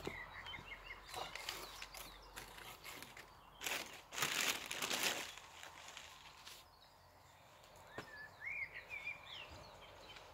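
Newspaper and plastic packing wrapping rustling and crinkling as it is handled, loudest about four seconds in. Small birds chirp briefly at the start and again near the end.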